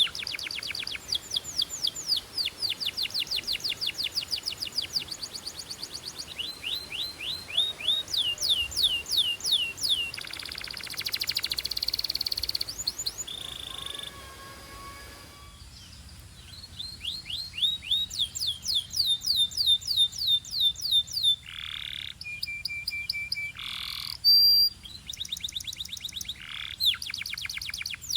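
Canary singing a continuous song of fast trills made of rapidly repeated down-slurred notes. A buzzy rattling phrase comes in around 11 seconds, and a steady whistled note and a few upward-swept calls follow later.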